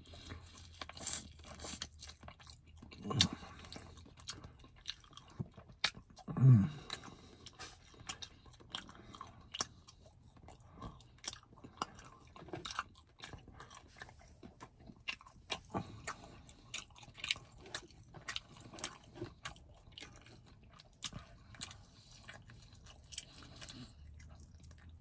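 Close-up chewing and biting of fried chicken eaten by hand: many small crisp clicks and crunches with wet mouth sounds, and two brief low hums, the louder about six and a half seconds in.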